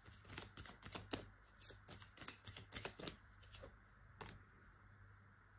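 Tarot cards being shuffled by hand: a faint run of quick, irregular soft clicks and slides for about four seconds, then it stops.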